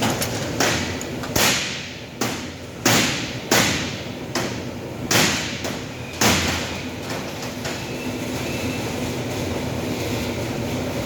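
About ten sharp bangs in quick, irregular succession over six seconds, each with a short ringing tail, then a steady background hum.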